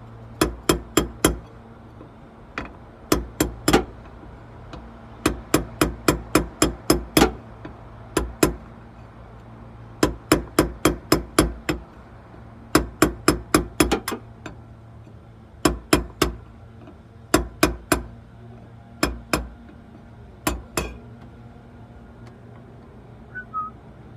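Hammer blows on metal in quick bursts of three to eight strikes, about three or four a second, with short pauses between bursts, over a steady low hum.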